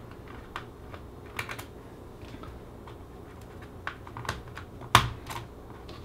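Irregular light clicks and taps of a hand and fingers on a laptop's plastic bottom case, with the sharpest click about five seconds in, over a faint steady hum.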